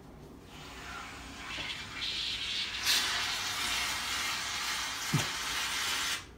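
Aerosol can spraying foam in a continuous hiss. It builds up about a second and a half in, is loudest from about three seconds, and cuts off suddenly just before the end.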